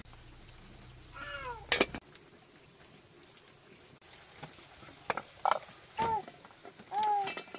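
Short high cries, each falling in pitch: one about a second in and two more near the end, with a few light knocks between them.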